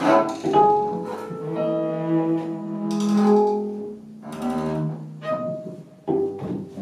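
Cello and double bass bowed together, holding long overlapping notes in short phrases that break off briefly about four and six seconds in.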